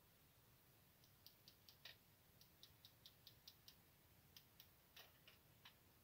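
A run of faint light clicks, about four a second, starting about a second in, from hand tools (screwdriver and pliers) working at the circuit-breaker terminals in an electrical panel.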